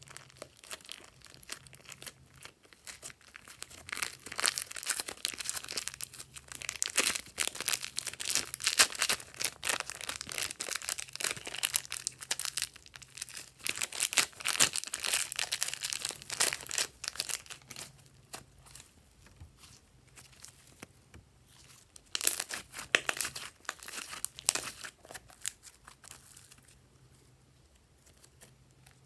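Green glossy slime being squeezed by hand out of a plastic piping bag: the plastic crinkles and the slime gives off dense small clicks and crackles, in two busy stretches with a quieter spell between and easing off near the end.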